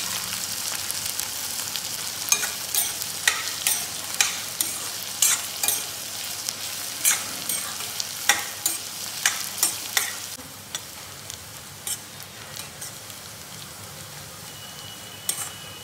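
Sliced onions and dried red chillies sizzling in mustard oil in a steel kadhai as they brown, with a steel spoon clinking and scraping against the pan as it stirs. The sizzle and clinks quieten after about ten seconds.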